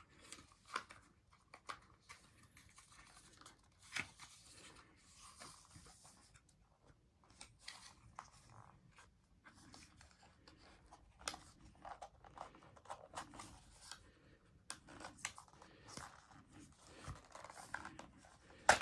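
Cardboard and paper packaging rustling and crinkling, with scattered small clicks and taps, as a mains lead is worked free of its box by hand. A sharper click comes near the end.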